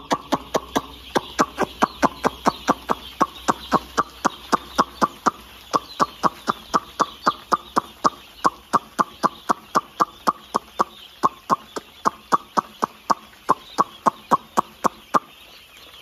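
Rapid, evenly spaced clicking, about four clicks a second, made to call a shed full of two-day-old chicks and check that they are still active; it stops about a second before the end. Under it, the steady high peeping of the massed chicks.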